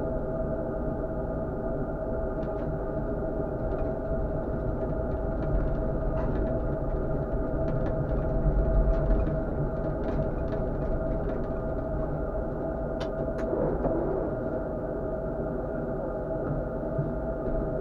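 Tatra KT4D tram running on its rails, heard from the driver's cab: a steady rumble under a constant hum, with scattered light clicks and knocks.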